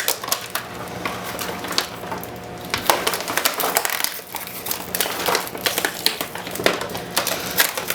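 Plastic and cardboard packaging crinkling and crackling, with irregular sharp clicks, as a toy drone's remote controller is worked out of its box.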